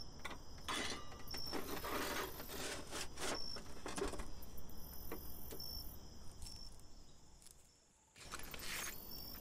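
Metal grinding discs, flap discs and circular saw blades clinking and scraping against one another as they are shifted around in a metal tray by hand. The rattling is busiest in the first few seconds, thins out, stops briefly just before the end, then starts again.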